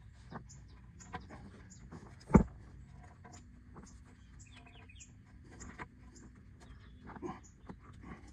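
Small birds chirping over and over in the background while a rubber hydraulic hose and its metal fitting are handled and worked back onto a tractor's transmission fitting, with faint clicks and one sharp knock about two and a half seconds in.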